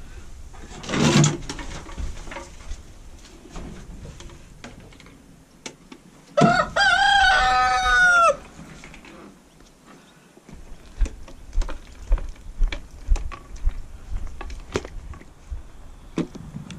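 A rooster crows once: a single long crow of about two seconds near the middle. Around it come knocks and clatters of handling work, with a brief loud noise about a second in.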